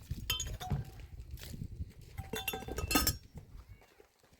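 Hard objects clinking together in two clusters of small strikes with short ringing tones. The second cluster, about two seconds in, is the louder.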